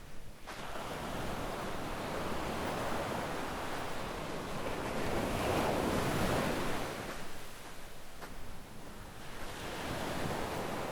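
Small waves breaking and washing up a sandy shore, the surf swelling to a peak about midway, easing off, then building again near the end.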